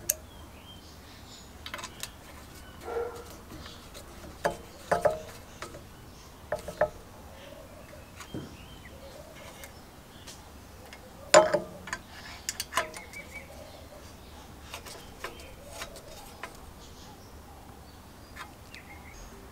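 Scattered metallic clicks and taps of a screwdriver and small parts while the stop switch is fitted and screwed onto a small engine's fan shroud; the loudest knock comes about eleven seconds in.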